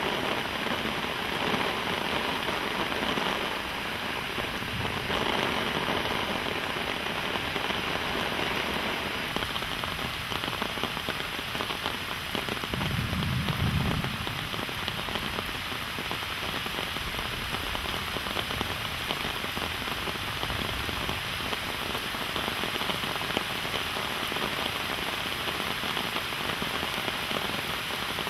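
Steady rain falling, an even hiss with no letup, with a brief low rumble about halfway through.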